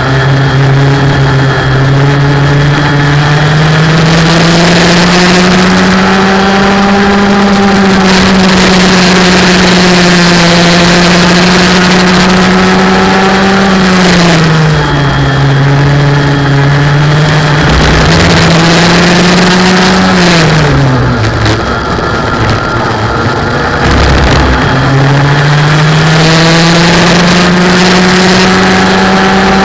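Race car engine running hard at high revs. Its pitch climbs and holds, falls away sharply about halfway through and again about two-thirds through, then climbs again near the end.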